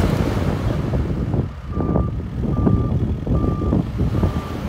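Off-road 4x4 engine running hard as the tyres churn through deep snow. From about a second and a half in, a vehicle's reversing beeper sounds steady, evenly spaced beeps, about one every 0.8 seconds.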